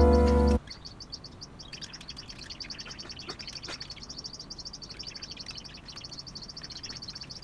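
Small birds chirping: a fast, even run of short, high chirps with a few fainter calls mixed in.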